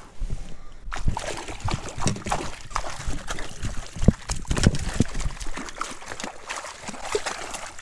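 Rainbow trout thrashing in a landing net held in the lake water, with a quick, irregular run of splashes that starts about a second in.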